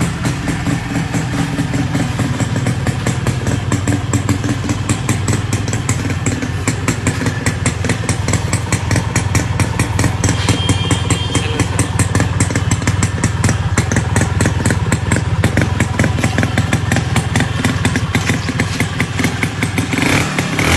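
Honda H100S motorcycle's single-cylinder two-stroke engine running steadily at idle, with an even, rapid pulse of exhaust beats.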